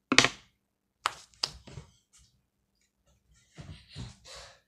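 Handling and knocking noise from a phone camera being moved about: one sharp knock, a few lighter clicks about a second later, then low knocks and rustling near the end.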